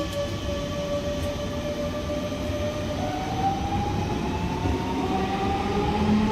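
Electric multiple-unit regional train moving off along a station platform: low rumble of the running gear under the whine of its traction motors. About halfway through, the whine climbs slowly in pitch as the train gathers speed.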